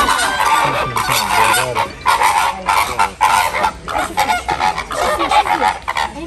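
A flock of greater flamingos honking, many short calls overlapping without a break.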